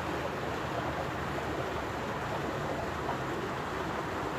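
Steady outdoor rushing noise with a low rumble underneath, even throughout with no distinct events.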